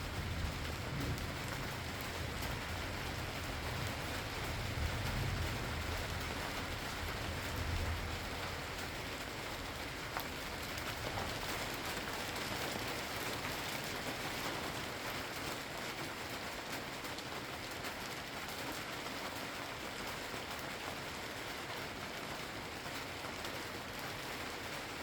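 Steady rain falling and pattering on surfaces. A low rumble of distant thunder dies away over the first eight seconds or so.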